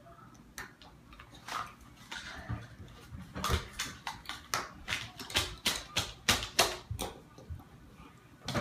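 Plastic Lego pieces being handled: a run of sharp clicks and clacks, a few scattered at first, then quick and close together for several seconds.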